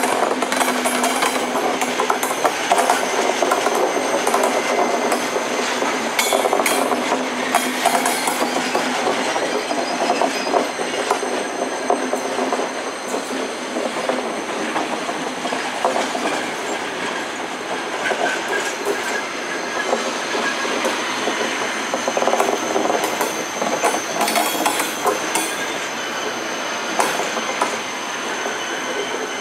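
Thello night train of Trenitalia couchette coaches rolling past, its wheels clacking over rail joints in irregular clicks, with a thin steady high squeal above the rumble.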